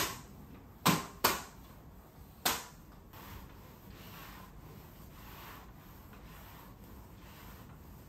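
Four sharp knocks in the first two and a half seconds, then a flat microfibre mop swishing back and forth over a wooden floor.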